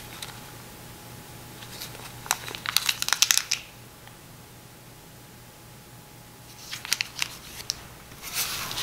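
Plastic packaging crinkling as it is handled, in two spells of a second or two each, with more crinkling starting near the end.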